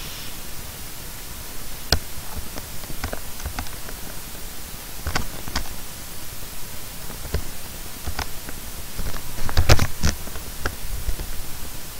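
Computer mouse clicks and light desk knocks: about a dozen short sharp clicks scattered over a steady hiss, with a louder cluster about ten seconds in.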